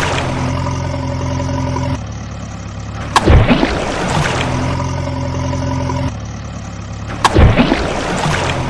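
Added vehicle-engine sound running steadily, broken about every four seconds by a sharp crack and a rushing sweep. The identical pattern repeats like a looped sound effect.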